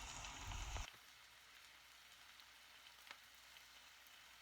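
Faint sizzling of rice noodles stir-frying in a large pot, which drops away about a second in, leaving a faint hiss with an occasional small tick.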